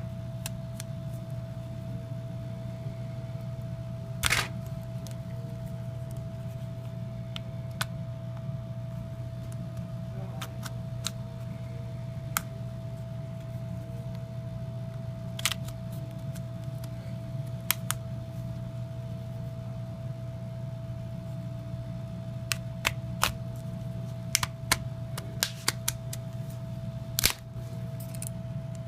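Scattered small sharp clicks and taps of hand work on a phone's plastic and metal parts, over a steady low electrical hum with a thin whine above it. The clicks come in a cluster near the end.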